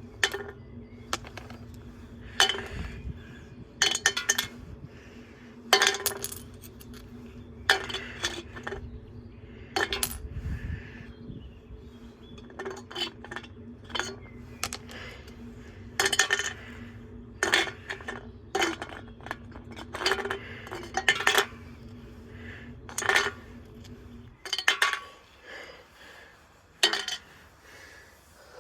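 Appliance UK washing machine running with a stone loaded in its drum: the stone clanks and bangs against the drum every second or two over the motor's steady hum. The hum cuts out about three-quarters of the way through, while a few more bangs follow as the drum winds down.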